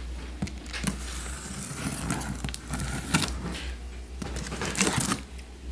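Utility knife slitting packing tape on a cardboard box, with cardboard scraping and rustling and a few sharp clicks and knocks as the box is handled, over a steady low hum.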